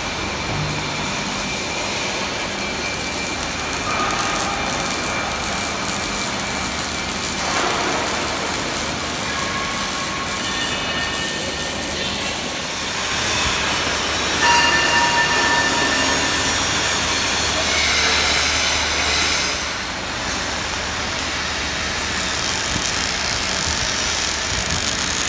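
Steady industrial workshop noise, a dense even din of machinery with short high whining tones coming and going.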